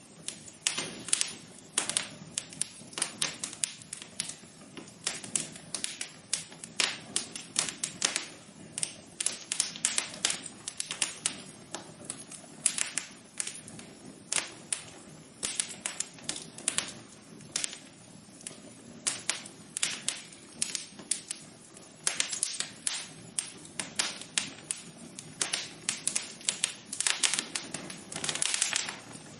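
Wood fire crackling in a fireplace: irregular sharp pops and snaps, several a second, over a steady low background rush.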